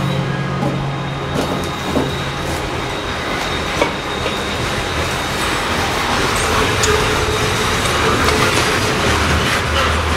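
Freight train of coal hopper cars rolling past, a steady rumble of wheels on rail with a few sharp clacks.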